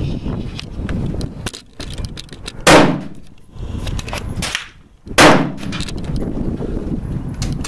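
Two pistol shots from an FMK 9C 9mm handgun, about two and a half seconds apart, each trailing off over about half a second.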